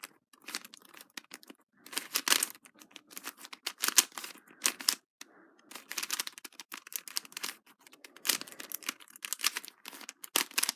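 Plastic clicking and clacking of a Lego-built 3x3 puzzle cube being handled and worked apart, in quick irregular bursts with brief pauses.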